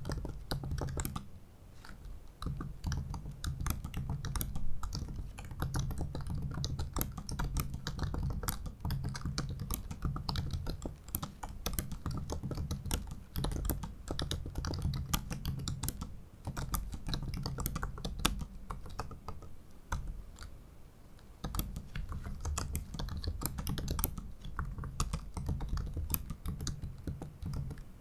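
Typing on a 2017 MacBook Pro 15-inch's built-in butterfly keyboard: a quick, continuous run of light key clicks, with short lulls about two seconds in and again about twenty seconds in.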